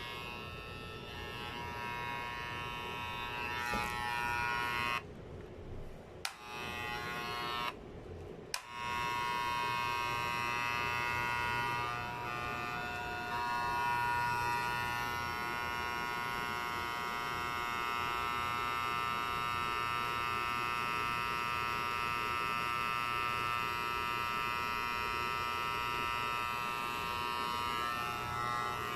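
Electric hair clipper running with a steady buzz. It is switched off and back on twice in the first nine seconds, then runs without a break.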